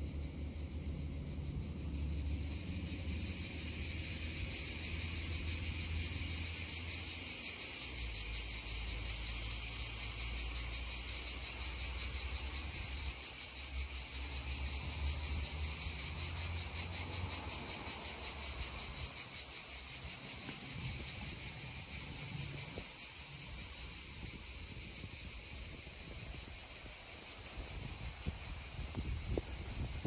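Cicadas droning in a dense, steady chorus with a fast pulsing texture, swelling about two seconds in and then holding.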